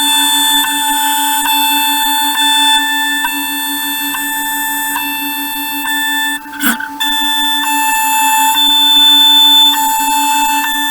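DIY CNC milling machine running with a steady, high-pitched whine, briefly interrupted by a click about six and a half seconds in.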